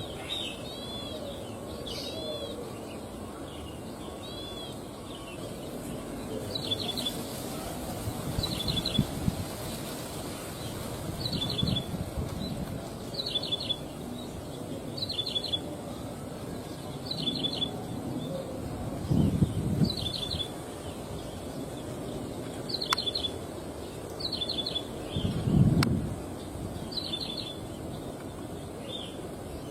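A prinia (ciblek sawah) calling: a few arched chirps at first, then a short, high, clipped call of several quick notes repeated about every one and a half to two seconds. Two brief low rumbles come in the background about two thirds of the way through and near the end.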